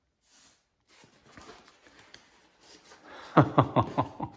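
Handling noises on a large EPO foam RC model airplane: faint rustling, then near the end a quick run of about seven sharp creaks within a second.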